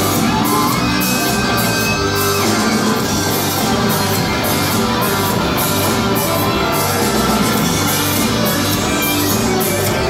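Live rock band playing: electric guitars, keyboards and drums, with a steady beat.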